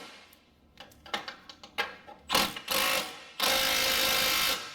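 Milwaukee 3/8-inch cordless gun spinning a rack-and-pinion mounting bolt down, preceded by a few scattered ratchet clicks; the tool runs in short bursts and then one steady run of about a second.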